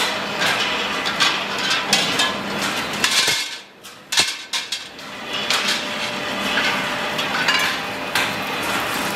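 Steel motorcycle wheel rims clanking and clinking against each other as they are handled and tossed onto a pile, with repeated sharp metallic knocks. The noise drops away briefly about three and a half seconds in, and a loud clank follows just after.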